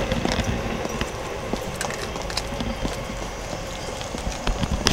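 Irregular footsteps and small clicks and knocks on a hard path over a steady background hiss, with a few louder knocks near the end.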